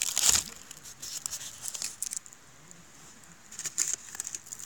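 Campfire of burning wood crackling, with scattered sharp pops and ticks that die down for about a second in the middle and pick up again near the end. A short rush of noise comes just after the start.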